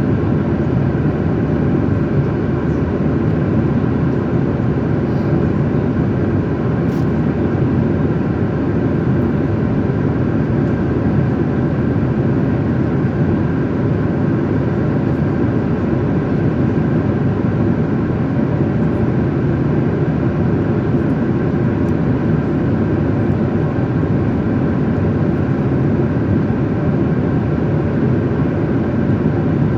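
Airliner cabin noise in flight: the steady hum of the jet engines and rushing air, level and unchanging, with one faint click about seven seconds in.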